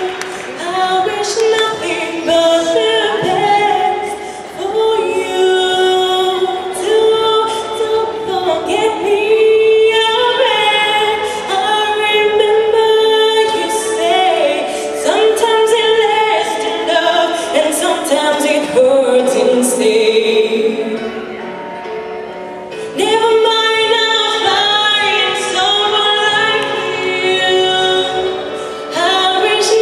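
A woman singing a slow song into a microphone over instrumental accompaniment, her voice carrying a wavering vibrato. The singing eases off into a quieter passage about two thirds of the way through, then comes back strongly.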